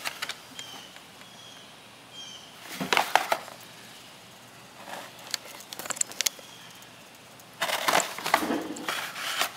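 Sealed military ration packets being handled, rustling and crackling as they are shifted and laid on top of one another, in three bouts. The last bout is the longest.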